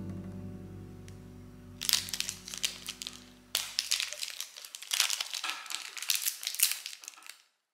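Crinkling and rustling of a mini KitKat's plastic wrapper being handled and torn open, in bursts from about two seconds in, while a held music chord fades out over the first four seconds.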